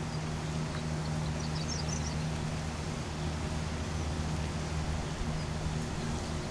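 A steady low mechanical hum, with a few faint high chirps about one and a half to two seconds in.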